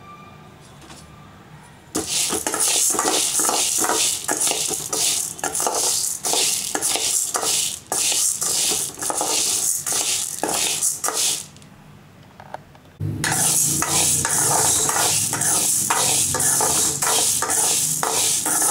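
A steel spoon stirs urad dal and chana dal roasting in a metal kadai. The lentils rattle and the spoon scrapes against the pan in quick ticks. It starts about two seconds in, pauses briefly about two-thirds of the way through, then starts again.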